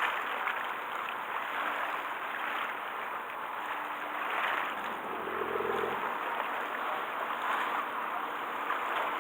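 Seawater splashing and washing, with wind, as a steady hiss that swells now and then. A short low tone sounds about five seconds in.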